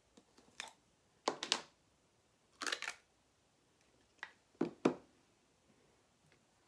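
Several short plastic clicks and knocks in small groups as a small jar of white chalk paste is picked up and handled on a work table.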